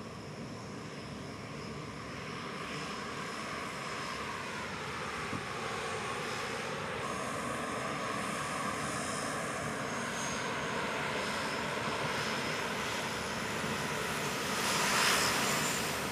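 C-130 Hercules turboprop engines and propellers running as the aircraft taxi: a steady engine whine and propeller noise with some gently shifting tones, growing gradually louder and loudest near the end as one passes close.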